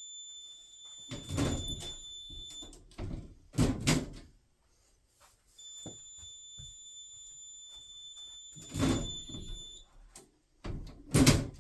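Several heavy thumps and knocks, like a door and handling, the loudest near the end. Between them a steady high-pitched electronic tone sounds twice, each time for about three seconds.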